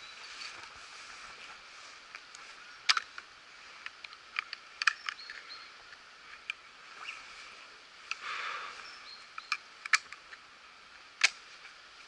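Scattered sharp clicks and small cracks, about seven of them, over a faint outdoor background, with a brief rustle about eight seconds in.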